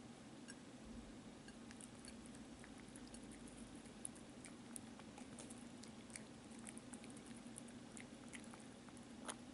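Kitten eating small bits of meat off a plate: faint, quick, irregular chewing and licking clicks, with one sharper tick near the end, over a steady low hum.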